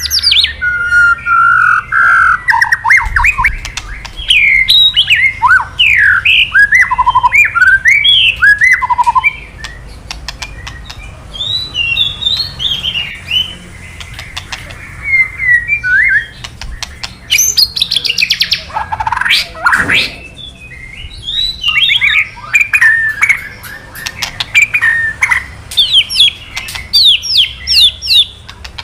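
White-rumped shama singing loud, varied whistled phrases laced with rapid dry clicking calls (kretekan). About two-thirds of the way through comes a long sweeping note, and near the end a run of fast repeated notes.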